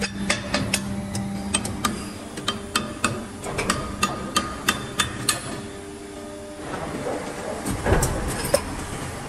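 Injection molding machine working: a steady low hum with a run of sharp, irregular clicks and knocks, several a second, that stop about five seconds in. Then come a few seconds of rustling and two heavier thumps near the end.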